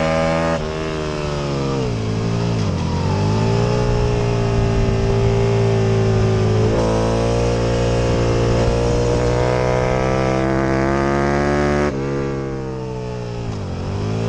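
Aprilia RSV Mille's V-twin engine at racing revs. The note cuts sharply about half a second in and falls for a couple of seconds, then climbs back up, steps again about seven seconds in, and drops away once more near the end before rising again.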